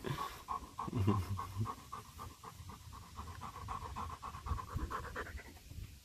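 German shepherd dog panting in rapid, even breaths, which stop a little after five seconds in. A short low sound comes about a second in.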